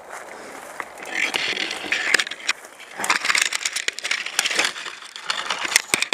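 Footsteps crunching and rustling through dry leaves and brush, a dense run of crackles and snaps starting about a second in.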